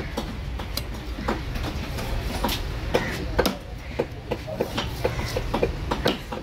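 Large knife chopping through a catla into steak slices on a wooden chopping block: a string of short, sharp, irregular knocks, about ten in six seconds, over a steady low rumble.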